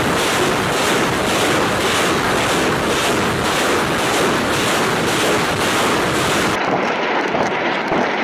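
Truck-mounted multiple rocket launchers firing a salvo: a continuous rushing roar of rocket motors, pulsing with launches about two a second. Near the end the roar gives way to a duller sound with scattered sharp cracks.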